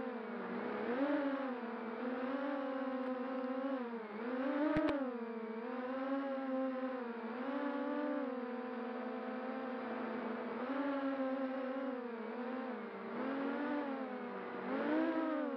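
FPV quadcopter's brushless motors and propellers whining, the pitch rising and falling every second or two with throttle changes. One sharp click near the middle.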